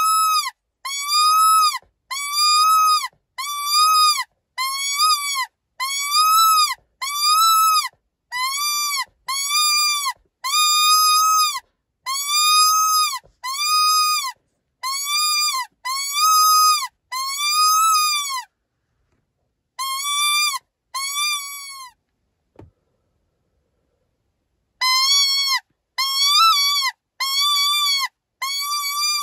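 Animal-in-distress predator call for coyotes: a fast series of loud, high-pitched cries, each about half a second long and rising then falling slightly in pitch, repeating more than once a second. The cries break off briefly after about 18 seconds, stop again for about three seconds a little later, then resume.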